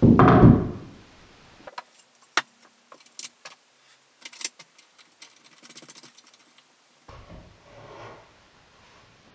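Small brass parts and screws clicking and tapping against a birch plywood frame and the work surface as they are handled and fitted, a scatter of sharp light clicks over several seconds. It opens with a louder, brief whoosh that falls in pitch and dies away within a second, and near the end there is a short rubbing, sliding sound.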